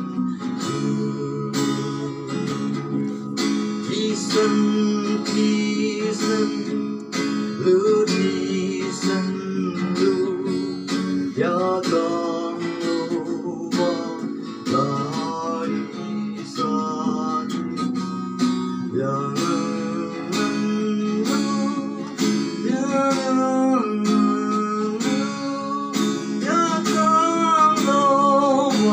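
Acoustic guitar strummed to a steady beat on a large barrel drum, with singing over it that grows more prominent about halfway through.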